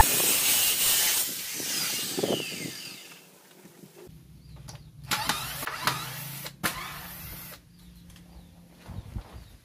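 Handheld electric circular saw finishing a rip cut along a long wooden plank, then its blade spinning down with a falling whine after the trigger is let go. A few sharp knocks of wood and tool handling follow.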